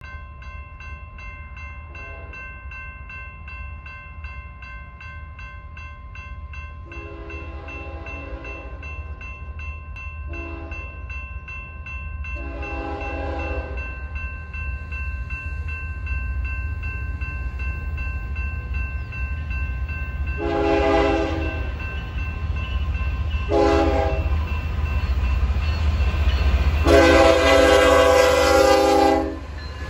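Grade-crossing warning bell ringing rapidly while an approaching BNSF intermodal train, led by GE ES44DC 7539, sounds its horn for the crossing in long and short blasts. The last long blast near the end is the loudest. The low rumble of the three GE diesel locomotives grows louder as the train nears.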